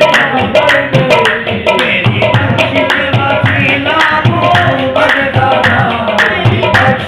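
Qawwali: male voices singing over a harmonium, with hand claps keeping a steady beat.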